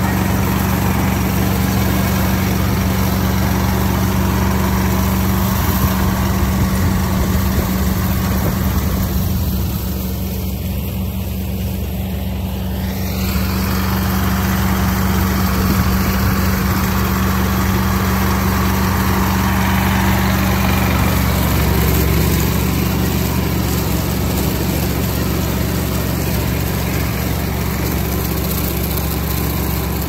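Mitsubishi combine harvester running steadily while it cuts standing rice, its engine and harvesting machinery giving a constant loud drone. The drone dips a little for a few seconds around ten seconds in.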